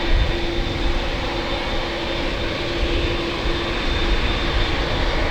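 Boeing 787-8 jet engines running steadily: a continuous low rumble with a steady hum, neither rising nor falling.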